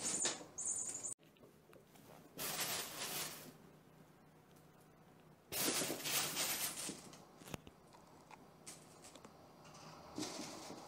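Fabric pop-up play tunnel rustling in three separate bursts as a mink scrambles through it. A louder noise near the start cuts off suddenly about a second in.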